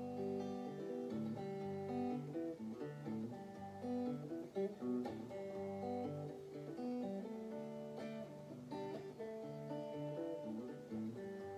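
Electric guitar played clean, picking a run of chords and single notes in a steady rhythm.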